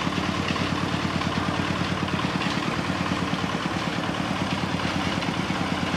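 Small engine running steadily at idle, with an even rapid pulse.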